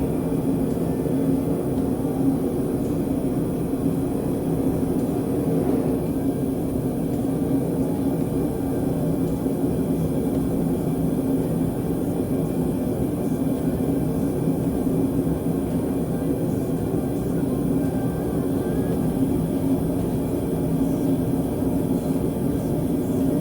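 Steady, unbroken roar and hum of the burner heating the crucible of molten silver for a sand-cast pour.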